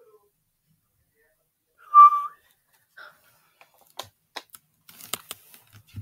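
A short, sharp whistle-like tone about two seconds in, then a run of light, irregular clicks.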